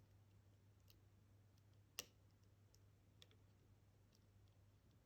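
Faint, sparse clicks of a lock pick working the pins of a Kaba experT dimple lock, with one sharper click about two seconds in.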